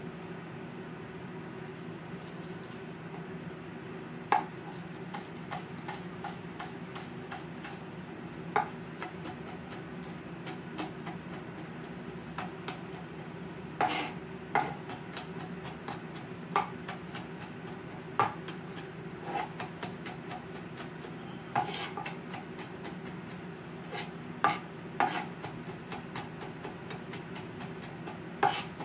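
Kitchen knife chopping and mincing garlic on a plastic cutting board: irregular taps of the blade against the board, some sharper and louder than the rest, over a steady low hum.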